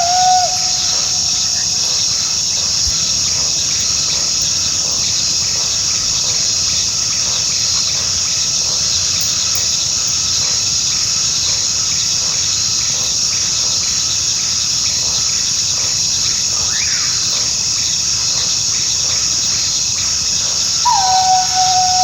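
Coyote howling: one long held howl ends in the first half second, a faint rising-and-falling call comes about two-thirds of the way through, and a new howl starts near the end, sliding down and then holding. Under it runs a steady high-pitched insect chorus.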